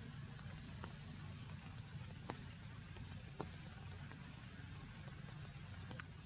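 Steady rain falling, with a few louder single drip taps scattered through it.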